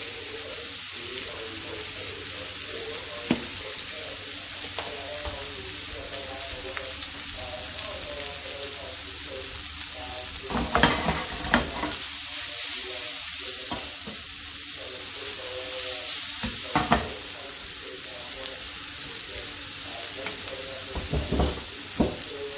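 Sliced onions sizzling steadily in a frying pan on a gas burner, with a few sharp knocks against the pan about halfway through and again a little later.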